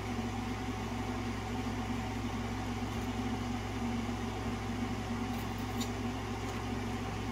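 Steady low mechanical hum of a room appliance, with a few faint ticks about five to six seconds in.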